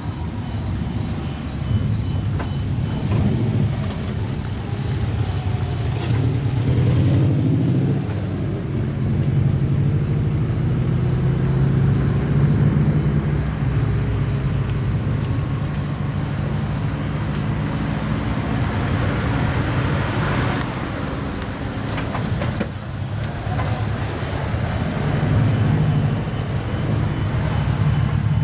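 Lowered cars with loud modified exhausts driving slowly out one after another, a continuous low engine rumble with the pitch rising and falling as they pull away.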